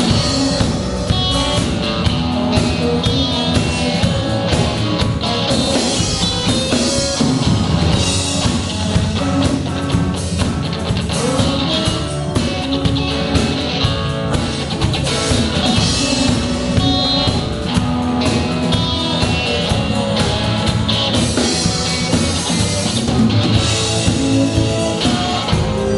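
A band playing a rock-style cover song, with guitar and a drum kit over a steady beat.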